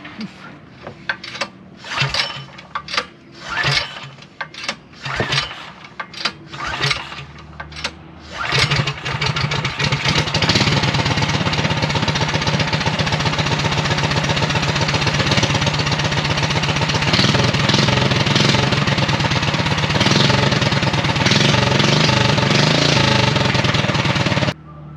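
First start of a freshly installed Predator 420 single-cylinder engine, with no muffler and its governor removed. Several short pulls and sputters, then it catches about eight seconds in and runs very loud and unmuffled, until it is shut off abruptly near the end.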